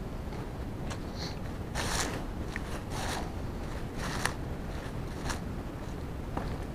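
Footsteps crunching on dry fallen leaves and loose stones, about one step a second, over a steady low rumble.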